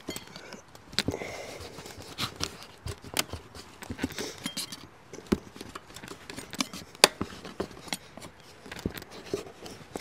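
A hand tool scraping and picking out soft, spongy sealant putty from around an RV water heater's frame: irregular short scrapes and sharp clicks, with no steady rhythm.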